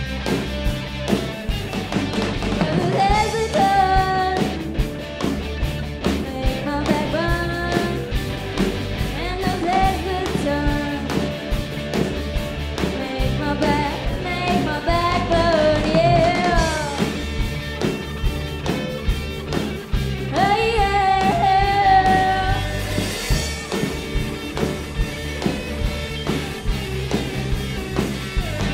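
A live rock band playing: electric guitars, bass and drum kit keeping a steady beat, with a lead vocal singing melody lines over them from about three seconds in.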